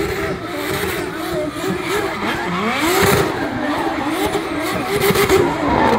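Drift car's engine revving hard, its pitch wavering up and down as the throttle is worked, while the rear tyres skid and smoke as it circles. The revs dip and climb again about halfway through.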